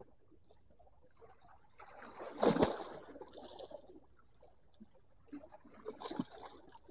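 Close handling noise as a small grouper is shifted in the hands: rustling and knocks, loudest for about a second some two and a half seconds in, with a smaller cluster about six seconds in.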